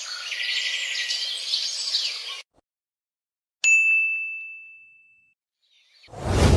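A single bright bell ding, struck once and ringing out on one clear note that fades away over about a second and a half. Before it, a clip of busy chattering, chirping noise cuts off abruptly; near the end a new, low rumbling effect begins.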